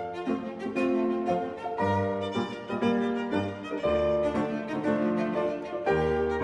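Background instrumental music led by a violin over bass notes, moving through a slow melodic line of held notes.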